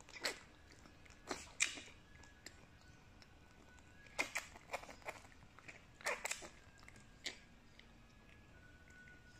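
Newborn puppy suckling at a milk bottle's rubber teat: faint, irregular wet smacks and clicking sucks, a few coming in quick clusters.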